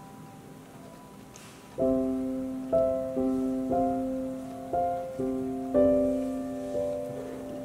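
Background piano music: soft sustained notes, then chords struck about once a second from about two seconds in, each fading away.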